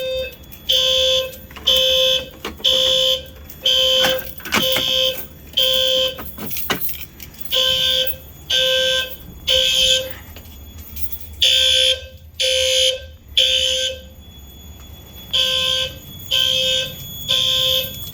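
Fire alarm horn-strobes (System Sensor P2R) sounding in alarm after a manual pull station is pulled. Loud, harsh tone blasts: six evenly spaced at first, then settling into the temporal-three evacuation pattern of three blasts and a pause, repeating. A few sharp clicks come in the first seconds.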